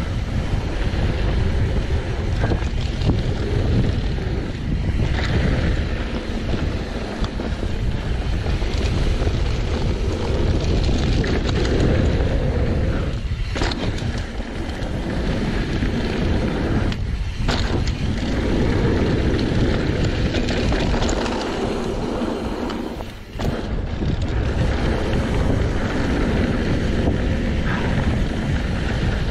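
Wind rush on the microphone over the rattle of a mountain bike and its tyres running fast on a dirt trail, steady throughout with one brief drop in level about three quarters through.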